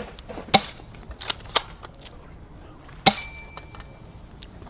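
A few sharp pops of a small gun firing. About three seconds in a louder metallic hit sets a bell target ringing briefly with a high, clear tone, the sign of a shot striking the bell.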